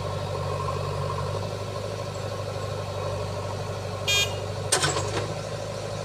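Diesel engines of a JCB 3DX backhoe loader and a Mahindra 475 DI tractor running steadily while the backhoe bucket tips soil into the tractor's trolley. A brief high ring just after four seconds in, then a short clatter of knocks near five seconds in as the load lands.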